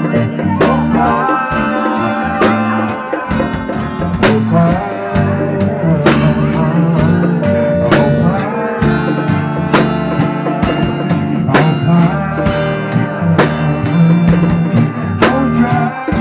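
A live band playing a song: electric guitar lines over bass notes and a drum kit keeping a steady beat, with cymbal crashes about four and six seconds in.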